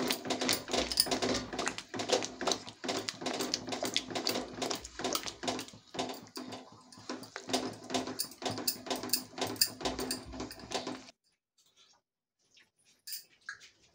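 Wooden spoon stirring thick, simmering dal in a stainless steel pan: rapid, irregular scraping and knocking against the pan with squelching from the dal. It cuts off abruptly about eleven seconds in, leaving only a few faint ticks.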